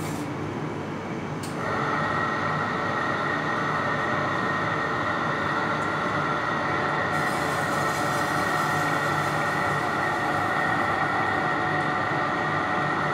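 Electric meat slicer switched on about a second and a half in, its motor and blade then running with a steady whine over the kitchen's background hum.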